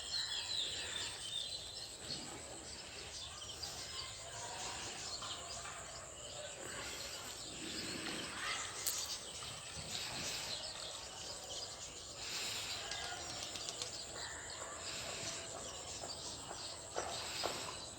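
Outdoor ambience with birds chirping and calling now and then over a steady background hiss.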